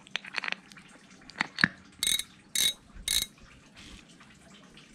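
Shimano Stella SW 8000PG spinning reel: small clicks as the spool is fitted onto its shaft, then three short mechanical clicking bursts about half a second apart, a couple of seconds in.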